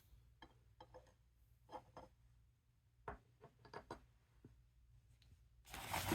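Faint scattered clicks and taps of trading cards being handled, then a louder rustle of cards being slid through the hands near the end.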